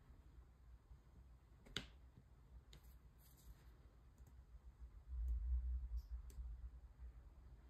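Sparse small clicks of a diamond-painting drill pen picking up resin drills and pressing them onto the adhesive canvas, with one sharper click a little under two seconds in. A low rumble starts about five seconds in and fades over a second or so.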